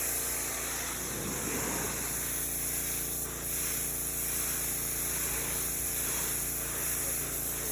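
Pressure washer spraying the dark, grimy wooden dock boards: a steady hiss of the spray over the even hum of its motor.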